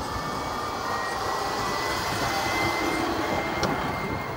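Steady road and wind noise from riding a bike along a paved lane, with a faint steady high whine and one small click near the end.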